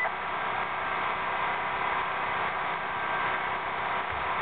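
Steady hum with an even hiss and no distinct events.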